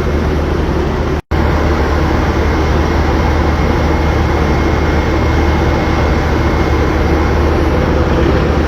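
Steady, loud engine noise: a constant low hum under a rushing noise, with a faint high whine. It cuts out for an instant about a second in.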